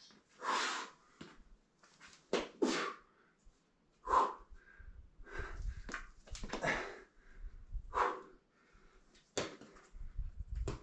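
A boulderer's hard, forceful exhalations with the effort of each move, in short noisy bursts coming irregularly every second or two.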